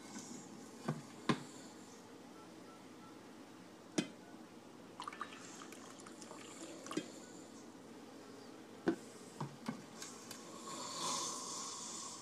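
A sleeping man snoring irregularly: scattered wet clicks and short snorts, and a longer breathy snore near the end.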